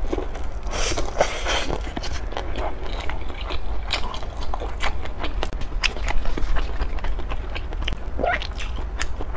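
Close-up eating sounds: teeth biting kernels off a cob of waxy corn, then chewing, with many short wet mouth clicks over a steady low hum.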